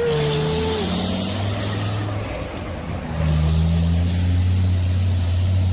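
Heavy logging truck's diesel engine running, then revving up and getting louder about three seconds in.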